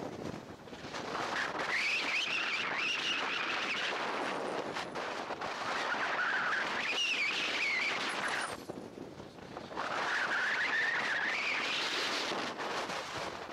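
PCM Erwin 5 radio-controlled model plane flying past, a high whine that rises and falls in pitch. It fades away briefly near the start and again about nine seconds in, then comes back.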